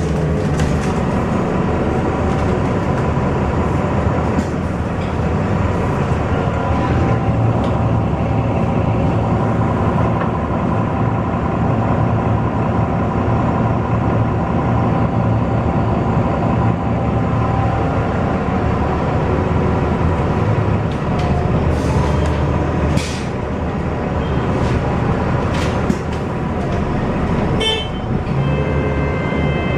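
Interior of an Irisbus Citelis city bus on the move: its engine and Voith automatic gearbox drone steadily, with a steady whine on top, the pitch shifting now and then as the bus speeds up and slows in traffic. Near the end come a few clicks and a short electronic beeping.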